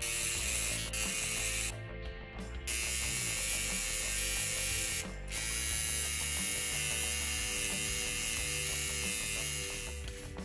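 Cheap Chinese rotary tattoo machine running steadily while it works red colour into the skin, breaking off briefly twice, about two and about five seconds in.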